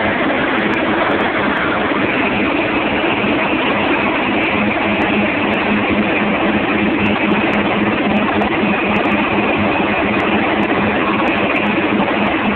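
Boat engine running steadily at speed, under a loud, steady rush of water churned up in the wake, with a faint steady hum beneath.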